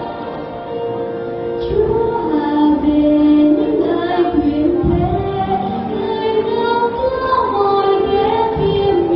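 A choir singing a hymn in long, held notes, the melody moving slowly from note to note.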